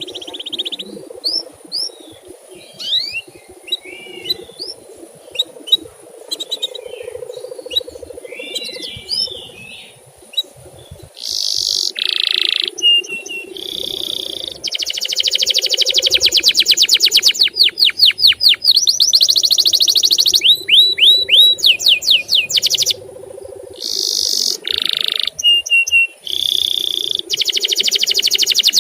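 Male canary singing: scattered short chirps and whistles at first, then, from about eleven seconds in, loud rapid trills and rolls, each run lasting a few seconds.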